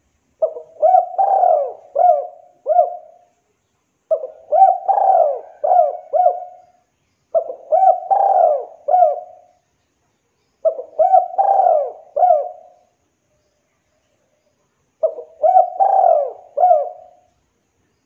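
Spotted dove cooing: five phrases of several rising-and-falling coo notes each, one every three to four seconds, with a longer pause before the last phrase.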